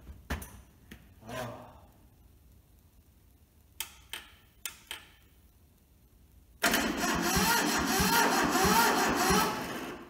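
Starter motor cranking the Toyota SDK4 skid steer's diesel engine for about three seconds, with an even pulsing, without it firing. It starts abruptly about six and a half seconds in and stops near the end. The engine is being turned over with its injectors loosened to bleed fuel through to them. Before it there are a few light clicks.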